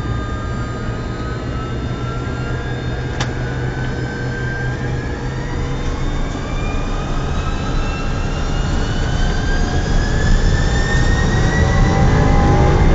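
Airbus A300's twin turbofan engines spooling up to takeoff power, heard from the cockpit: a whine that rises steadily in pitch over a low rumble, growing louder. A single sharp click about three seconds in.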